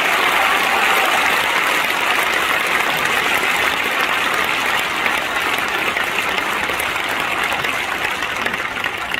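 Crowd applauding, a dense steady clapping that eases off near the end.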